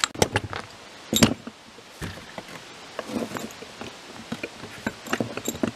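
Irregular knocks, taps and clicks of tools and wooden pieces being handled on a wooden table, the loudest knock about a second in.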